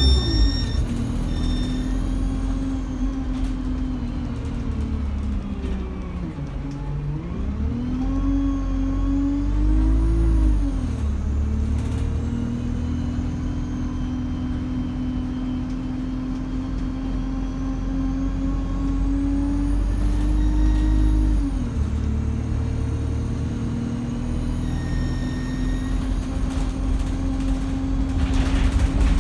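Diesel bus engine running under way, with a high turbocharger whistle rising and falling in slow sweeps as it spools up and down. The engine note drops and recovers a few times, once about a third of the way in and again about three quarters of the way through.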